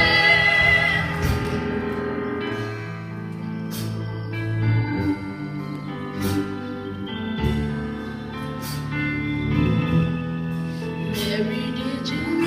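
Live gospel music: a choir's held chord ends about a second in, then the accompaniment carries on with sustained chords, bass notes and a sharp percussion hit about every two and a half seconds.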